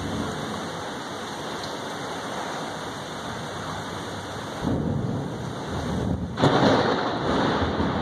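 Steady heavy rain of a severe thunderstorm. A little past halfway, thunder begins to rumble, and a sudden louder thunderclap comes about six and a half seconds in, rolling on afterwards.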